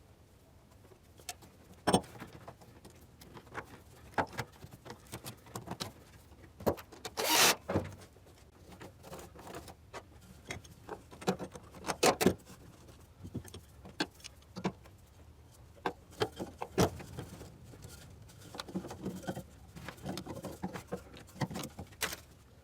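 Scattered clicks, knocks and light metal rattles of a power steering pipe and its fittings being fitted into place by hand, with a longer rustling noise about seven seconds in.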